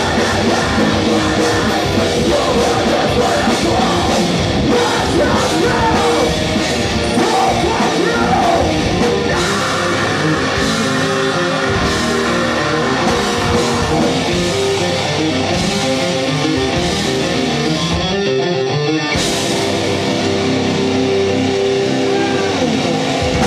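Metalcore band playing live, with heavy distorted guitars, drums and vocals at a steady loud level. About eighteen seconds in the sound thins out for about a second, then the full band comes back in.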